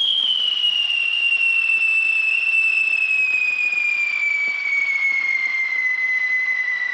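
Cartoon falling-whistle sound effect: one long whistle sliding slowly down in pitch over a hiss.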